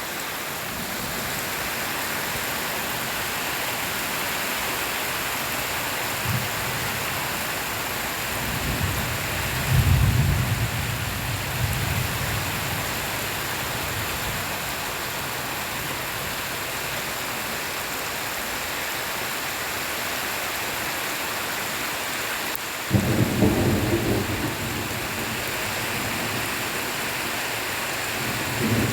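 Steady heavy rain falling, with low rumbles of thunder about ten seconds in and again a little before the end, the second starting suddenly.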